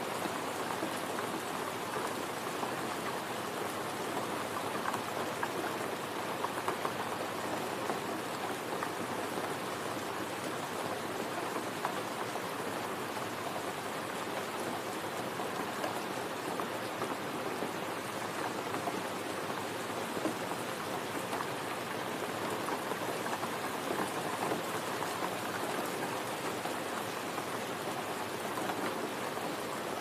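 Steady rain falling: an even hiss with the odd louder drop standing out.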